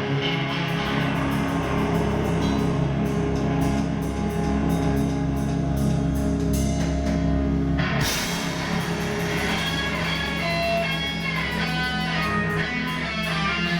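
Rock music with guitar and drum kit over a steady beat; about halfway through the arrangement changes and a guitar melody line comes to the front.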